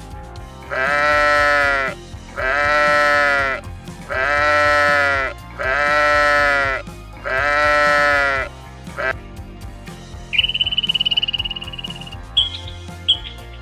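An animal call repeated five times, each one long and even in pitch, about a second and a half apart, followed a little later by a high, fast-pulsing trill.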